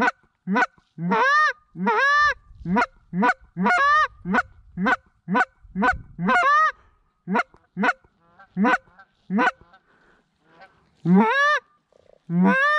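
Flock of geese honking as they fly in close: a steady run of short honks, two or three a second, mixed with longer calls that rise and fall in pitch.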